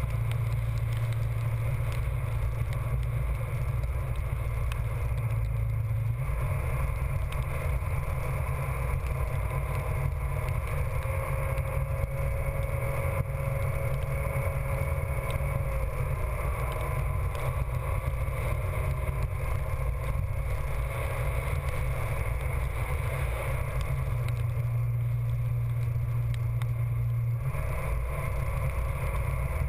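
Steady low rumble of wind buffeting the microphone of a camera riding on a fast-moving kite buggy in a storm, mixed with the buggy's wheels running over wet ground. The rumble shifts in strength a few times.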